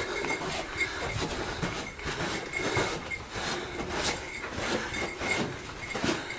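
Footsteps crunching and scuffing on gravel and rock, with rubbing and handling noise on the camera microphone, as a hiker moves through a narrow slot canyon. Irregular knocks and scrapes come two or three a second over a steady rustle.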